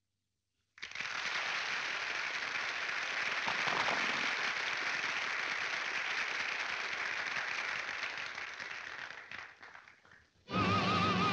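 Audience applause, a dense clapping that starts suddenly about a second in and dies away near the end. Music with a wavering held note comes in just before the end.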